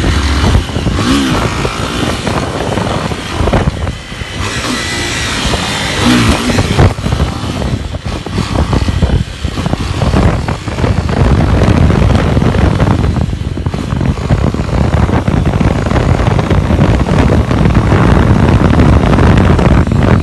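Motorcycle engine running and revving while being ridden, its pitch rising and falling, with rushing noise.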